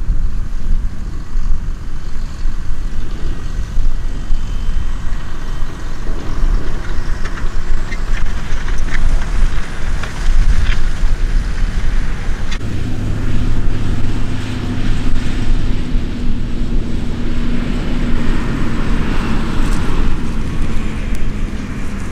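Scania tipper truck and a Fendt tractor with a loaded forage wagon driving across a harvested maize field, their diesel engines running under a heavy low rumble. A steadier engine drone comes in about halfway through as the tractor draws near.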